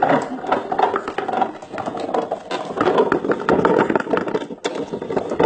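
Homemade all-wood, hand-worked olive-cracking machine being run, its wooden parts clattering and knocking rapidly and irregularly.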